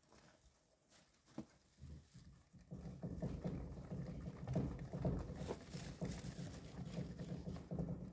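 A gerbil running in a wooden exercise wheel: quick patter of its feet with the low hum of the spinning wheel. It starts about three seconds in and stops near the end.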